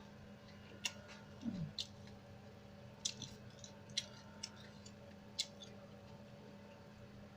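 Eating sounds: about half a dozen short, sharp clicks at irregular spacing with chewing in between, over a faint low steady hum.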